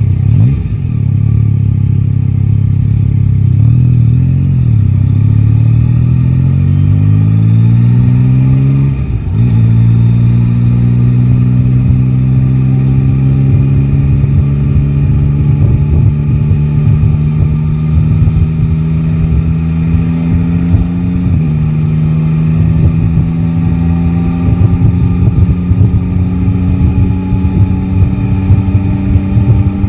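Yamaha Tracer 9 GT's three-cylinder engine pulling through the gears: revs climb for several seconds, drop sharply at a gear change about nine seconds in, then rise slowly again with another shift a little past twenty seconds in.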